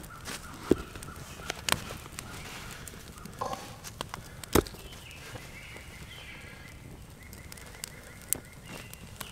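Small campfire of wet wood and leaves crackling, with a few sharp pops and a faint thin whistle in the second half.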